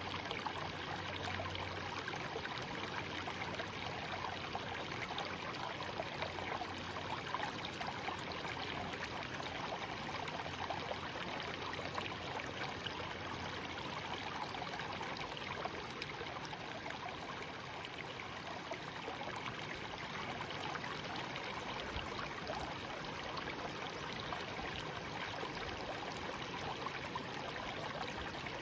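Shallow stream babbling steadily over rocks, a continuous gurgling rush with fine trickling detail.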